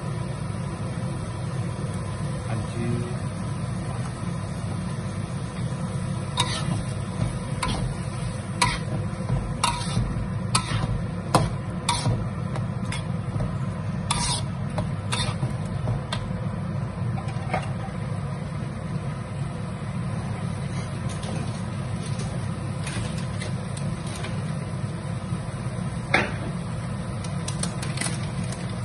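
Metal spatula scraping and knocking against a steel wok while stir-frying onions, ginger and tomato, over a steady low hum. The scrapes and taps come in a cluster about a third of the way in, with one more near the end.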